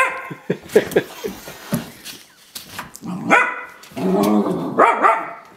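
Husky puppy barking and growling while play-fighting with a cat: a few short sharp barks, then two longer drawn-out calls about three and four seconds in.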